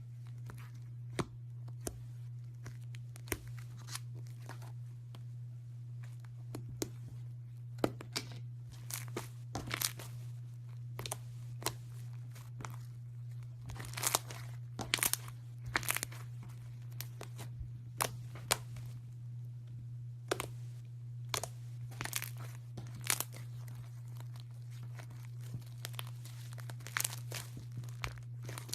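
Slime being squeezed and worked by hand, giving irregular crackling pops and clicks, over a steady low hum.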